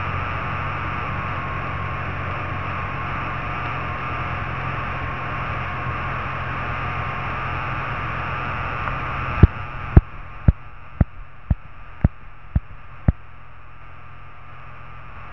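Cessna 172P's engine and cabin noise, a steady drone under a hiss, heard on final approach. About nine seconds in, the hiss suddenly drops away. Eight sharp clicks follow, about two a second.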